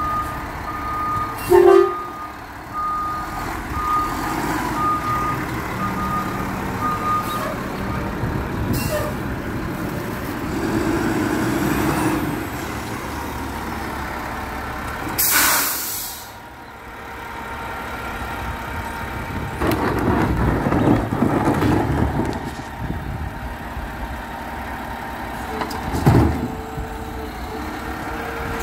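Garbage truck running with its reversing alarm beeping about once a second for the first several seconds. A short air-brake hiss comes about halfway through, with a couple of loud clanks.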